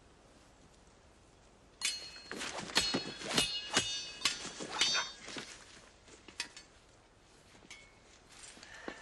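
Steel smallsword blades clashing in a rapid flurry of ringing clinks, starting about two seconds in and lasting about three seconds, followed by a few scattered lighter clicks and knocks.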